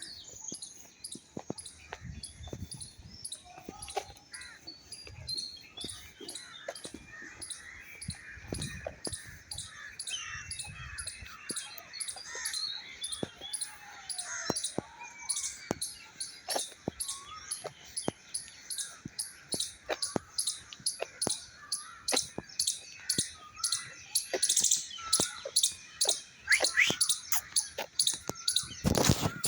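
Birds chirping and calling, with footsteps on a trail at a steady walking pace of about two steps a second. The steps get louder near the end.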